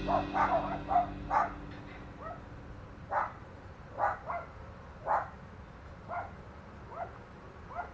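West Highland White Terrier puppies yapping: a quick run of short yaps in the first second and a half, then single yaps about once a second.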